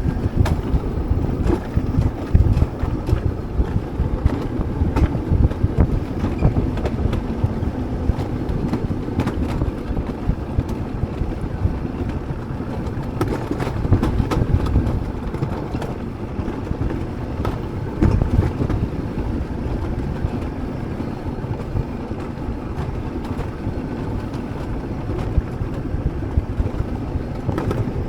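Alpine coaster sled running along its metal rails: a steady low rumble with frequent rattling clicks, and wind buffeting the microphone.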